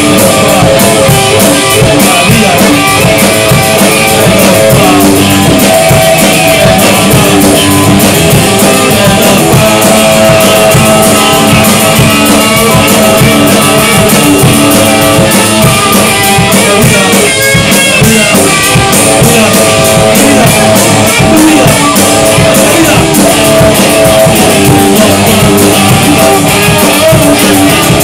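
A rock band's recorded song, with guitar and drum kit playing continuously at full volume.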